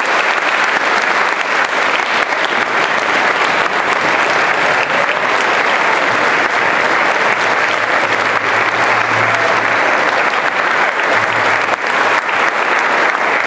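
A large audience clapping steadily: a long, sustained round of applause.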